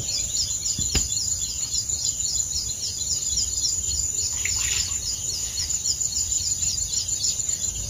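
Steady high-pitched chirping that pulses evenly about four times a second, over a low outdoor rumble, with one sharp click about a second in.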